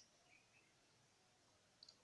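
Near silence: room tone, with a faint high double click near the end.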